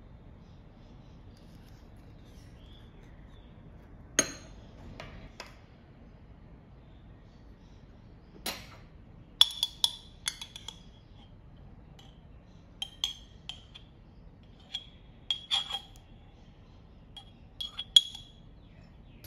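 Metal spoon clinking and tapping against a ceramic bowl while scooping and scraping off thick peanut butter. The clinks come singly and in small clusters, each with a short ring.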